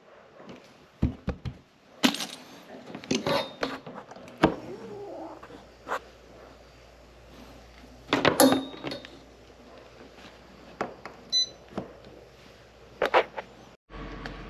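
Handling noise of small metal objects such as tools or hardware: scattered clinks and rattles with some rustling, and a louder clank about eight seconds in.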